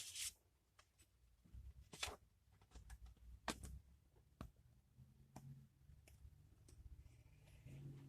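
Near silence in a small room, broken by a few faint clicks and soft handling bumps.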